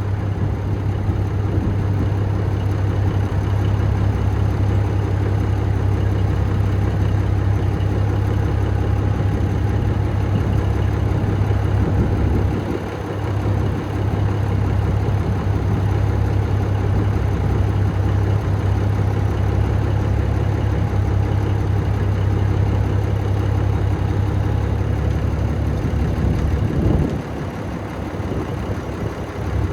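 Heavy diesel engine idling steadily, its level dipping briefly twice.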